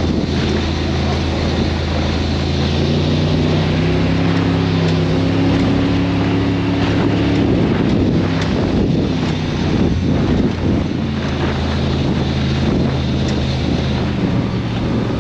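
Baja powerboat's engine running at cruising speed, a steady low drone with wind buffeting the microphone and the rush of the hull through the water. The engine note rises slightly a few seconds in. A little past the middle it is partly drowned for a couple of seconds by choppy wind and water noise, then it steadies again.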